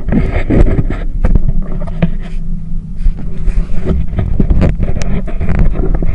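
Tour boat's motor running under way: a steady low rumble with irregular knocks and buffeting picked up by an action camera's microphone.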